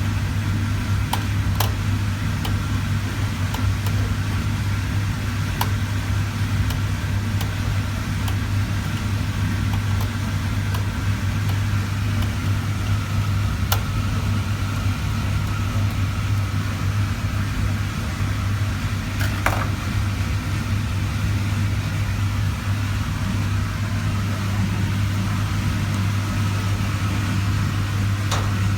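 Refrigerator compressor running with a steady low hum, with a few sharp clicks scattered through it.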